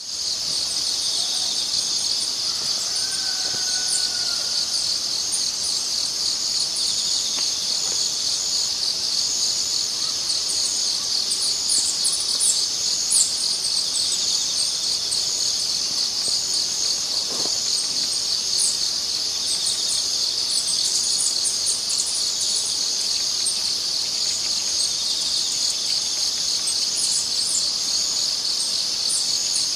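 A steady chorus of trilling insects, with occasional short bird chirps above it and a brief whistled bird note about three seconds in.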